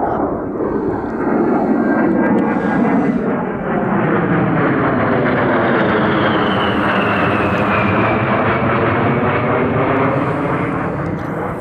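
A-10 Warthog's twin TF34 turbofan engines as the jet flies low overhead: a loud, steady rush of jet noise. A high whine falls in pitch through the middle as the aircraft passes.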